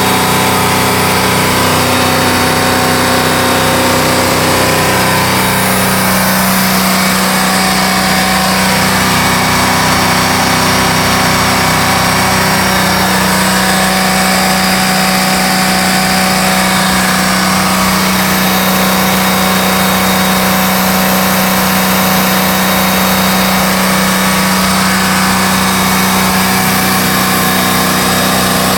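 Indmar-marinized GM 350 V8 inboard engine of a Mastercraft ski boat running steadily, with a slight change in tone about six seconds in. It runs normally here, without the no-start or power-loss fault that a bad ignition control module was causing.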